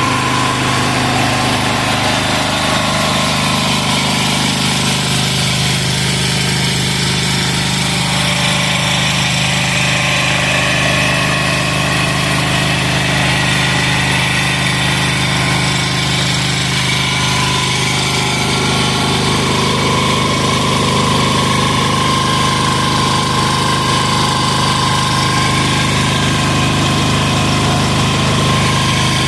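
186FA single-cylinder air-cooled diesel engine running steadily at idle on 10W-30 synthetic-blend motor oil in place of diesel fuel.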